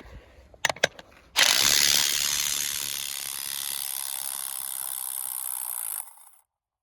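RIDGID 18V brushless subcompact half-inch impact wrench in speed 3, hammering on a rusted trailer lug nut for about four and a half seconds until the nut breaks free. It is loudest at the start, settles to a lighter, steadier rattle, then stops. A few short clicks come just before it starts.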